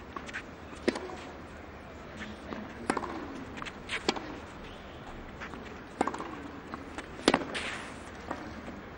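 Tennis ball struck back and forth in a rally on a clay court: five sharp racket hits about one to two seconds apart. The last and loudest hit, about seven seconds in, is a volley at the net.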